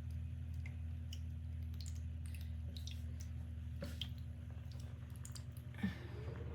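Indoor tabletop waterfall fountain running: its small pump hums steadily under faint trickling water and scattered small drips, with one short bump about six seconds in.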